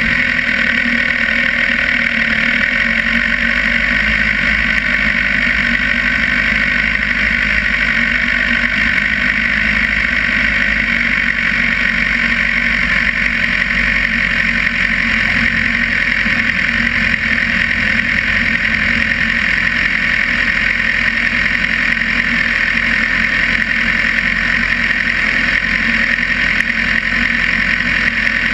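Sport motorcycle engine idling steadily with no revving, heard from a camera mounted on the bike's fairing.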